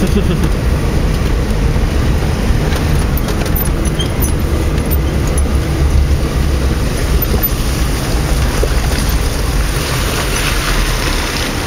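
Vauxhall Frontera Sport driving over a rough off-road track, heard from inside the cabin: the engine and drivetrain run with a steady low rumble, with a few short knocks from the body and suspension over the bumps.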